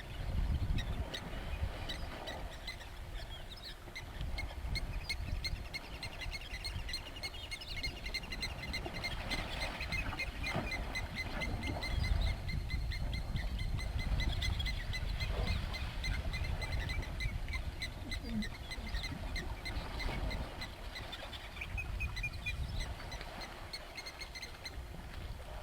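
Outdoor wildlife ambience: steady rows of rapidly repeating high chirps, with a trill partway through and a low rumble underneath.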